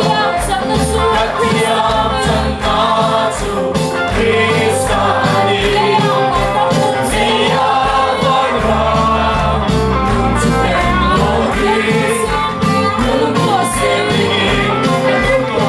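Gospel song sung by a group of voices over a band, with a steady drum beat and bass.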